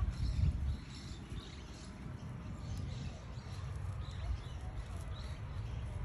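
Outdoor ambience: an uneven low rumble of wind on the microphone, with faint, scattered chirps of small birds in the background.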